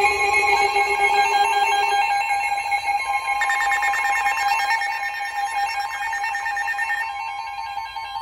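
Several NOAA weather radios sounding their alert alarms together for a new severe thunderstorm warning: a layer of steady electronic alarm tones. One low tone stops about two seconds in, a pulsing beep joins about three seconds in, and the highest tones cut out near the end.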